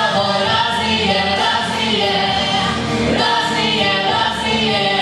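A man and a woman singing a pop duet into handheld microphones, their voices amplified over musical accompaniment.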